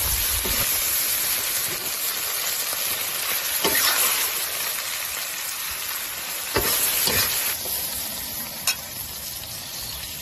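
Yardlong beans and pork stir-frying in a hot wok: a steady sizzle, with the metal spatula scraping and tossing the beans now and then. The sizzle eases off a little near the end.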